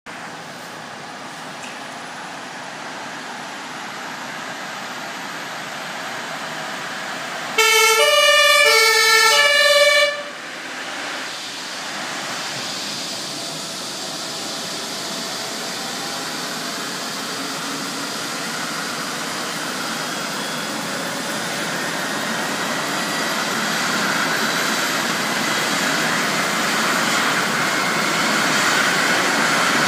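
Rescue helicopter's turbine engines starting up: a rushing noise with a faint rising whine, growing steadily louder. About eight seconds in, a two-tone emergency siren sounds loudly for about two and a half seconds, then cuts off suddenly.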